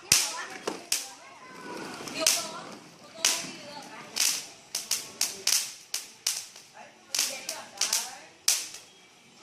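Fireworks going off: about twenty sharp cracks at irregular intervals, bunching to several a second in places, each with an echoing tail.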